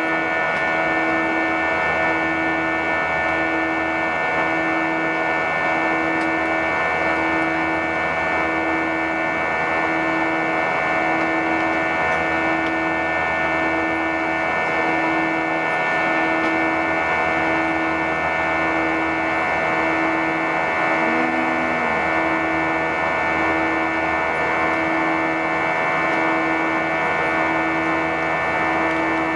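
Airbus A320 cabin noise in the climb after takeoff: a steady jet-engine and airflow drone with several steady whining tones, and a lower hum that pulses about once a second.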